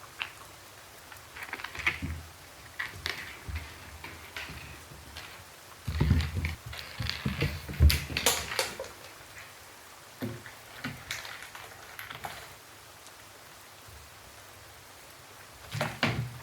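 Irregular patter of raindrops tapping on a hard surface, single drops spaced apart, with a denser run of heavier drops about six to nine seconds in and another cluster near the end.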